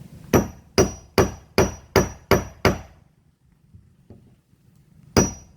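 Hammer peening over the end of a copper boat nail against its washer to clinch it: seven quick strikes, about two and a half a second, each with a light metallic ring. After a pause of about two seconds the strikes start again near the end.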